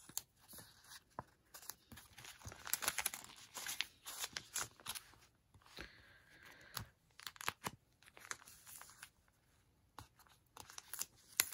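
Close handling of planner stickers and washi tape: irregular short peeling, tearing and crinkling crackles, with a quieter spell near the end.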